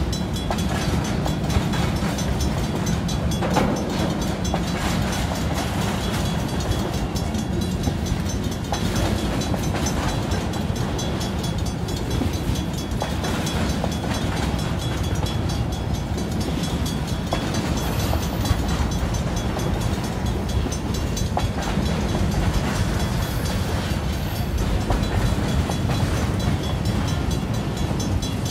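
CN freight train cars rolling through a level crossing: a steady rumble and clatter of steel wheels on the rails, with the crossing signal's bell ringing repeatedly over it.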